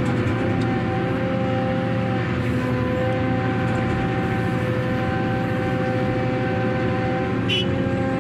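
Ship's cargo crane machinery running steadily, a constant whine over a low rumble, as it hoists a bucket of limestone out of the hold.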